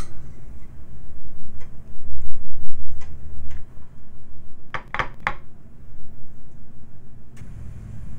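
A spoon clicks lightly against a bowl a few times, then three sharp knocks come in quick succession about five seconds in. A steady low rumble runs underneath.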